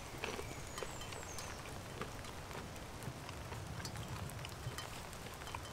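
Rain falling steadily: an even hiss with many scattered sharp ticks of drops landing.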